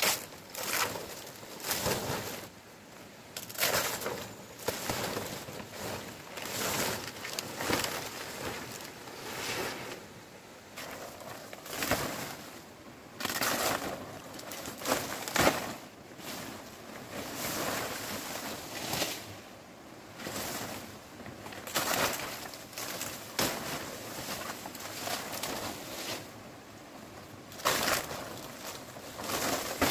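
Stiff fresh fan-palm leaves rustling and swishing as they are handled and gathered, in irregular bursts every second or two.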